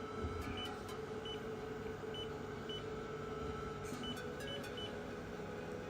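Short high key beeps from a robot teach pendant as buttons are pressed to type in a program name, about seven at uneven intervals, over a steady electrical hum.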